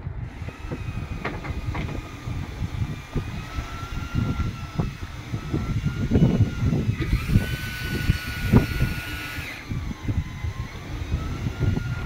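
Boat engine running under way, with a faint whine that slowly rises and falls in pitch, over gusty wind on the microphone and the wash of a choppy sea.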